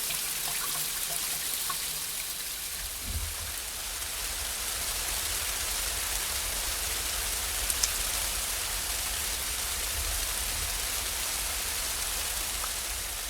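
Steady rain falling, a dense even hiss with a few individual drops ticking out, and a low rumble underneath from about three seconds in.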